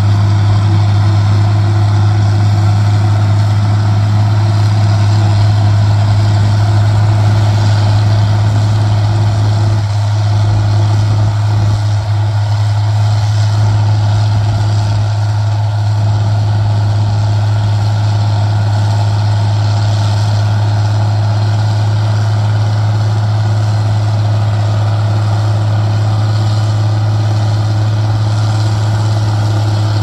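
International 1256 tractor's turbocharged six-cylinder diesel engine running steadily under load, with the New Holland 790 forage harvester working as it chops standing corn. The sound is a loud, even drone with a strong low hum.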